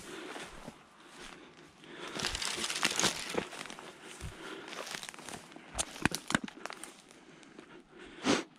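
Footsteps crunching through dry pine straw, leaves and brush, with branches rustling against the walker, a few sharp snaps a little past the middle and a loud brushing swish near the end.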